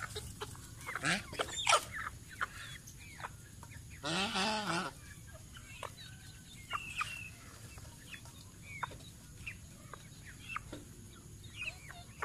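Chickens clucking while feeding, with short calls scattered throughout and one longer, louder call about four seconds in.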